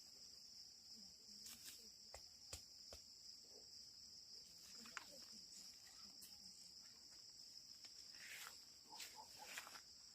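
Steady high-pitched insect chorus in a field, faint, with a few scattered light clicks and faint distant voices.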